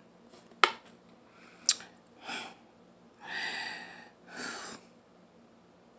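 Two sharp clicks about a second apart, then a woman's breathy exhalations and sighs, three in a row with the middle one the longest, made in exasperation.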